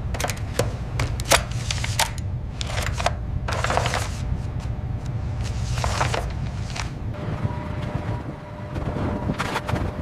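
Steady low rumble with irregular sharp clacks and knocks in clusters, plus a few longer hissing bursts about four and six seconds in.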